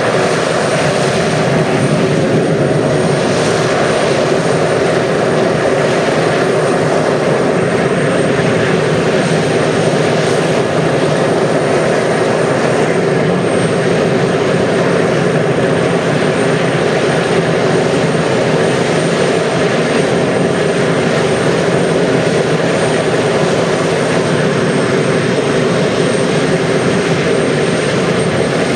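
Antonov An-12's Ivchenko AI-20 turboprop engines running steadily on the ground during engine start-up: a loud, even propeller and turbine drone with a thin high whine over it.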